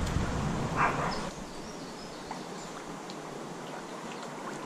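Shallow creek water flowing with a steady soft rush. During roughly the first second there is a low rumbling handling noise and one brief pitched sound.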